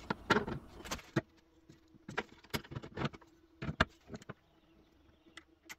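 A scattered series of sharp clicks and light knocks, as of small parts and tools being handled and set down on a bench, over a faint steady hum.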